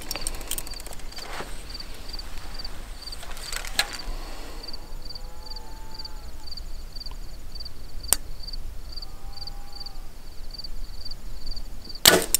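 A Mathews VXR compound bow fired near the end: one sharp crack as the string is released and the arrow leaves. Before it come a few faint clicks while the arrow is nocked and drawn, over an insect's steady chirp repeating a couple of times a second.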